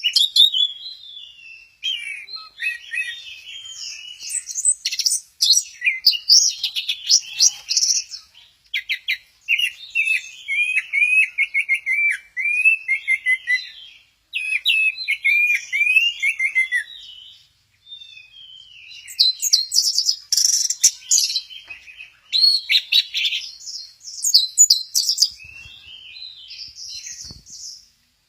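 Orange-headed thrush singing a long, varied song of quick whistled and chattering phrases, including a run of repeated down-slurred notes, broken by a few short pauses.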